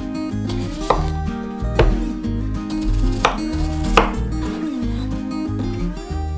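A kitchen knife chopping down onto a cutting board, four separate strokes over the first four seconds, over background music.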